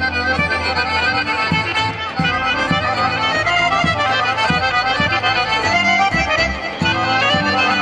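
Macedonian folk dance music playing for a line dance, with pitched instruments over a regular beat.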